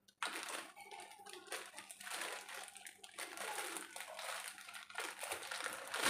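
Clear plastic packaging crinkling and rustling in irregular bursts as hands unwrap a hair crimper.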